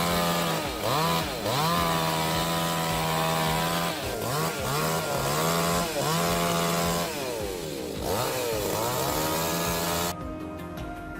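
Chainsaw cutting through a large oak log, the engine note dropping and climbing back again and again as it bogs under load in the cut. Near the end it cuts off abruptly to music.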